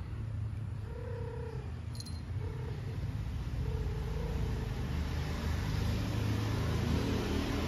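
A cat gives a few short, low, wavering growl-like calls during a scuffle between two cats, about a second, two and a half and four seconds in. Under them runs the steady rumble of a motor vehicle engine, which grows louder in the second half.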